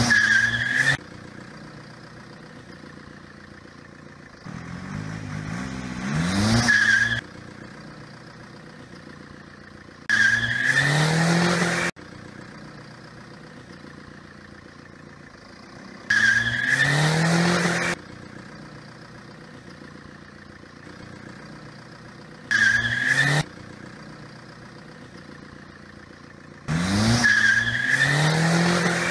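Car engine revving up, then tyres screeching, repeated in loud bursts about every five or six seconds. Each burst cuts off abruptly, as a clip laid over the picture would.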